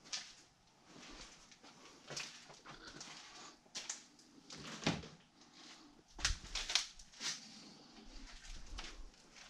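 Footsteps scuffing and crunching over a littered floor, irregular and uneven, with the loudest steps about five seconds in and again between six and seven and a half seconds in.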